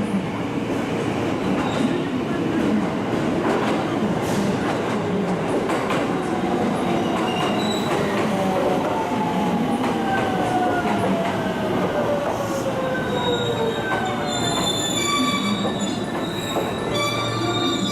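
An electric train slowing into a station platform: running rumble with rail clicks, and a motor whine falling steadily in pitch as it brakes. High steady squealing tones come in near the end as it comes to a stop.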